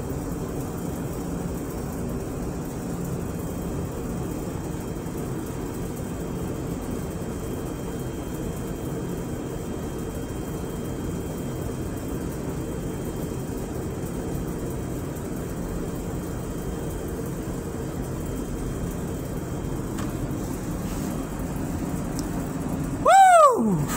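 Steady low hum of commercial kitchen equipment. Near the end comes one loud, short whooping tone that briefly rises and then falls in pitch.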